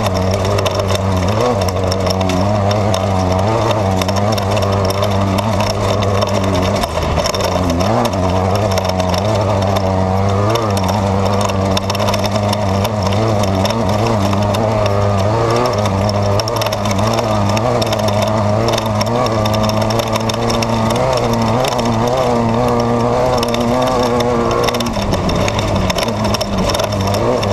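Off-road race car engine heard from inside the car at race pace, its revs rising and falling continuously as the car works over the desert course.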